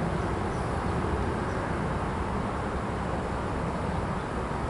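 Steady low rumble of an approaching freight train's lead diesel locomotive, a Norfolk Southern AC44C6M with its GE 16-cylinder engine running.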